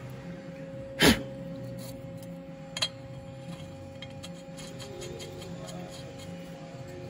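Spark plug being fitted into the freshly tapped plug-thread hole of a Stihl 461 chainsaw cylinder. A sharp click about a second in is the loudest sound, a lighter click follows a couple of seconds later, then faint ticks as the plug is turned in by hand over a steady hum.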